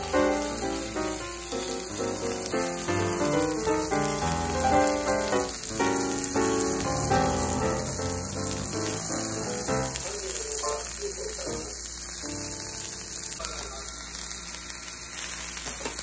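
Yakisoba noodles, shredded cabbage and pork sizzling steadily on a hot iron teppan griddle. Background music plays over it and stops about ten seconds in, leaving the sizzle alone.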